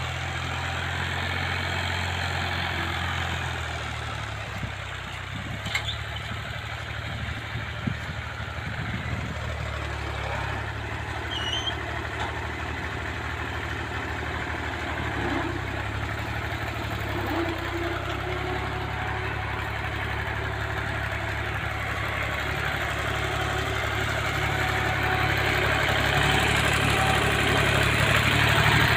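Fiat 480 Special tractor's three-cylinder diesel engine running steadily as it pulls a disc implement through ploughed soil, getting louder near the end.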